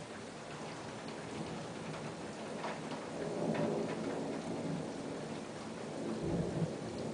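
Steady rain with scattered drops tapping close by, and thunder rumbling that swells about three seconds in, then a deeper rumble near the end.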